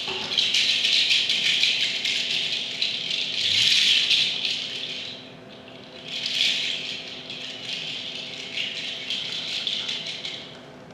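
Dense rattling, like a shaker or rattle shaken continuously, swelling and fading in two long waves and dying away near the end. A faint steady hum lies beneath.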